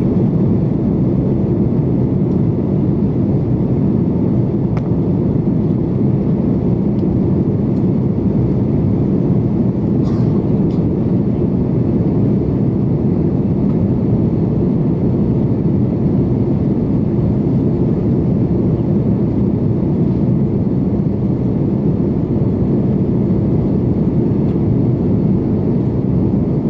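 Steady cabin noise of a jet airliner in flight, heard inside the cabin from a window seat over the wing: the engines and rushing air blend into one constant low drone.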